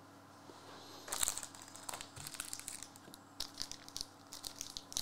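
Trading cards being handled on a table: faint rustling and light clicks of card stock, starting about a second in and coming in short, scattered rustles.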